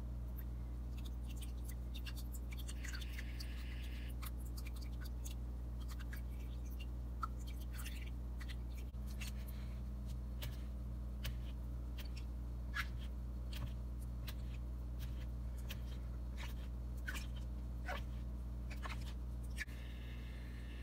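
A utensil stirring yogurt in a bowl, with scattered light clicks and scrapes against the bowl, over a steady low hum.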